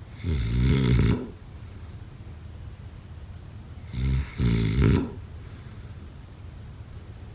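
A sleeping person snoring: two loud snores about four seconds apart, the second opening with a short catch before the main snore. A low steady hum continues between them.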